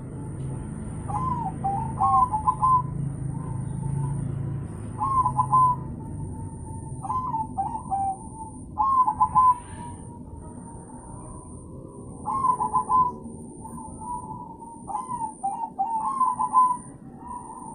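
Crossbred perkutut (zebra dove) cooing: short phrases of quick, stuttering coo notes, repeated every few seconds.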